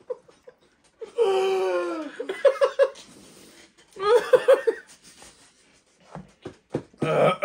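People laughing in short bursts, after a long drawn-out vocal sound that falls in pitch about a second in.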